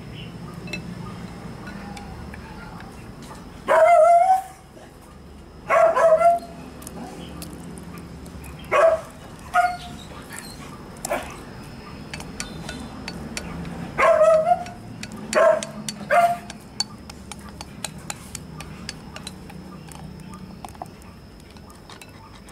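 A dog barking in short, loud barks, singly and in pairs, in several groups from about four seconds in until about two-thirds of the way through.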